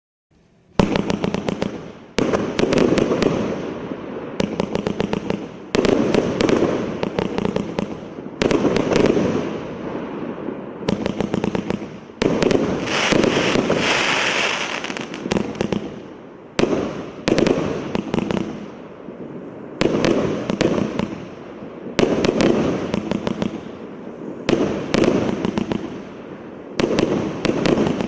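A 138-shot assorted fireworks cake firing. Rapid volleys of shots start about a second in and come every couple of seconds, each followed by a spell of hissing and crackling from the bursting effects.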